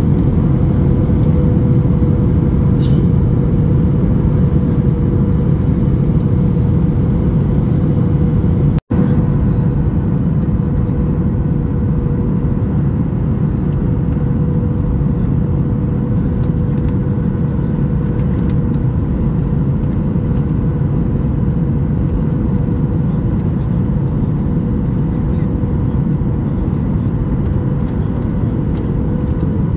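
Cabin noise inside a Boeing 737 MAX 8 on final approach with its flaps extended: a steady low rumble of airflow and engines, with a steady mid-pitched hum running through it. The sound cuts out for an instant about nine seconds in.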